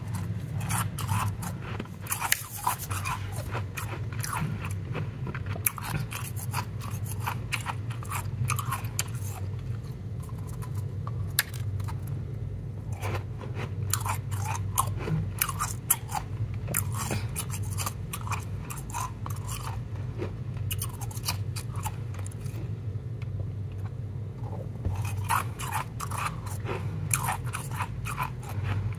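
Powdery frozen ice being bitten and chewed close to the microphone: a dense run of crisp crunches and crackles that thins out twice and picks up again near the end, over a steady low hum.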